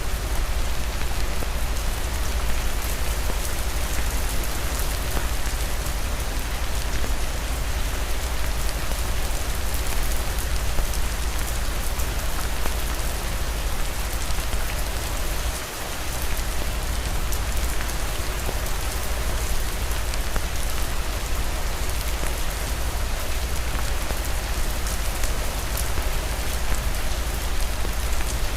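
Steady rain falling, an even hiss full of small drop ticks over a deep, constant low rumble.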